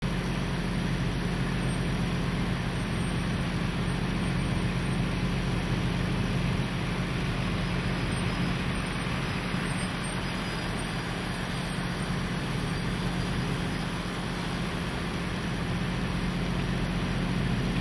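Heavy fire trucks' engines running steadily as the trucks roll slowly past in a line, with a low, even engine rumble under the road noise.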